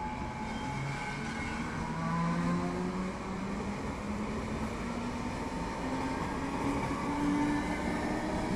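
Passenger train running along the rails, a steady rumble of wheels on track with a whine that rises slowly in pitch as the train gathers speed.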